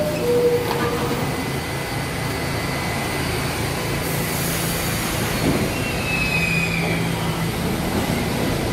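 New York City subway train of R68 cars running along the station platform: a steady rumble of wheels and motors on the track, with a faint high wheel squeal about six seconds in.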